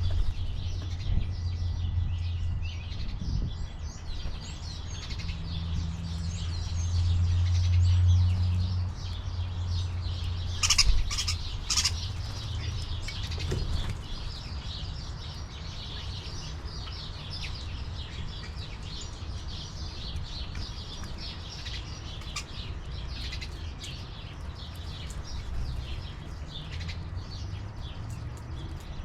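Small birds chirping around a bird feeder, many short high chirps throughout, with a few brief louder sounds about eleven seconds in. A steady low rumble runs underneath.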